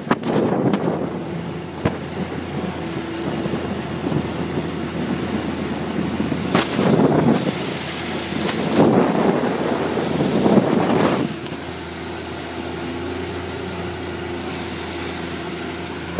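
Wind buffeting the microphone on a moving motorboat, over the steady drone of its engine, with several louder gusts in the middle.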